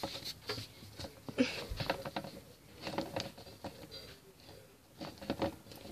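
Soft, scattered taps and rustles of small plastic toy pony figures being handled and shuffled about on a surface.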